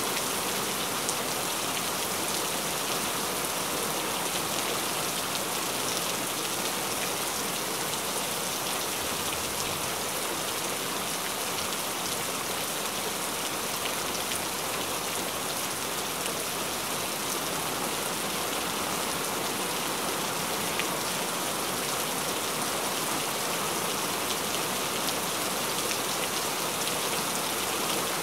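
Steady rain falling, an even hiss of many drops at a constant level, with no breaks or single loud events.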